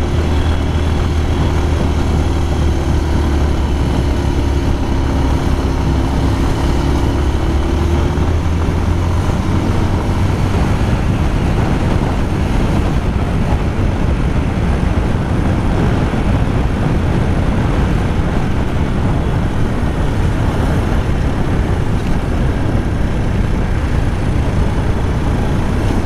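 Motorcycle engine running steadily under way, with wind rushing over the microphone. The engine tone stands out for the first several seconds, then sinks under the wind noise about nine seconds in.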